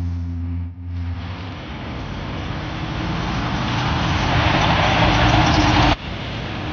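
A car engine running with a steady low hum, then a rush of engine and road noise that grows steadily louder, as of a car pulling away or passing, and cuts off abruptly about six seconds in.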